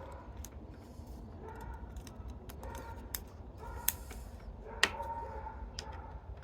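Metal clicks and light scraping as a worm-drive hose clamp is fitted around a bicycle frame and turned with a screwdriver, with two sharper clicks after the middle. Behind them, a faint short squeak-like tone recurs about once a second.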